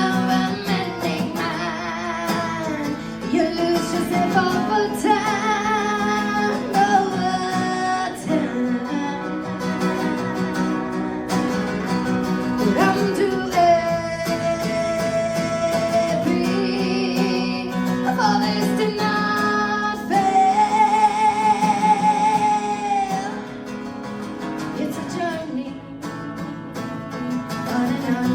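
A woman singing over strummed acoustic guitar, a live solo song performance, with long held notes wavering in vibrato about halfway through and again near the end.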